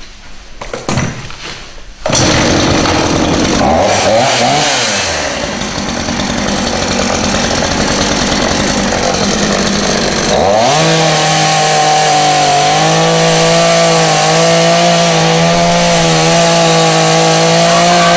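A chainsaw: a few faint knocks, then it starts suddenly and loudly about two seconds in. It runs roughly with its pitch dipping and gliding, then from a little past halfway holds a steady high-revving note to the end.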